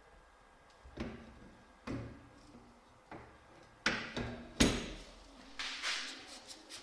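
A series of separate knocks and clunks, about one a second, the loudest about four and a half seconds in, followed by a short rustle.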